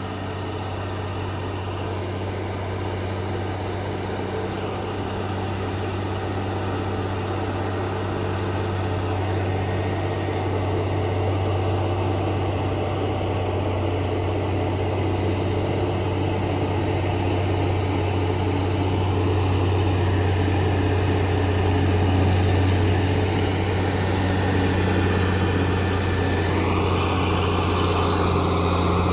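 Heavy logging truck's diesel engine running steadily under load, growing gradually louder, with its note rising near the end.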